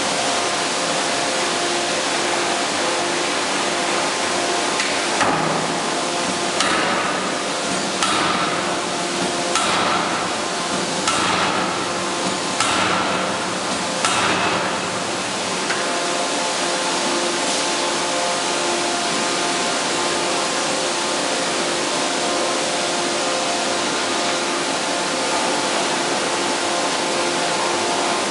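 C86Y fully hydraulic die forging hammer striking a red-hot workpiece: a run of about eight heavy blows roughly a second and a half apart, starting about five seconds in and ending about halfway through. Steady machinery noise with a few constant tones runs underneath.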